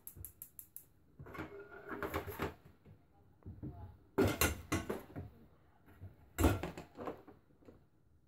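Cookware being handled: a few clatters and knocks, two sharp ones around four seconds in and the loudest just past six seconds.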